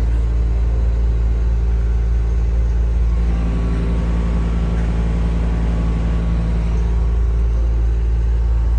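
Semi-truck's diesel engine running steadily with a deep rumble while the tractor-trailer creeps through a tight gap, pulling a little harder about three seconds in.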